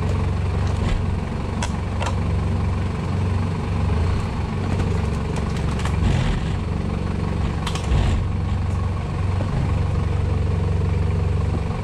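Off-road 4x4's engine running steadily at low revs as it crawls over a loose, rocky slate track. A few short knocks and clicks, from stones and the vehicle's body and suspension, come about two seconds in and again about eight seconds in.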